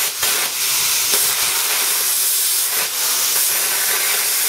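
PT31 plasma torch cutting sheet metal: a steady loud hiss of air and arc with a few sharp pops. It is fitted with a damaged (half) swirl ring, so it cuts badly, melting out the side of the cut instead of cutting through.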